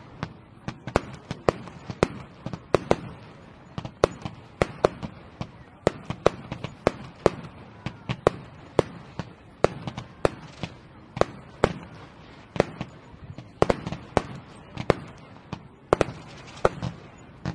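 Fireworks going off in a rapid, irregular series of sharp bangs, about two to three a second, each followed by a brief low rumble.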